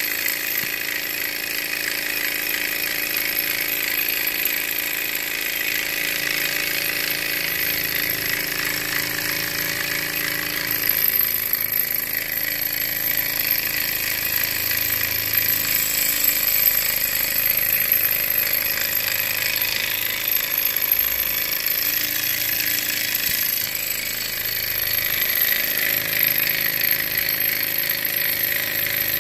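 Miniature Stirling engine running steadily on a small flame, its piston and flywheel making a fast, even mechanical clatter as it drives a small generator.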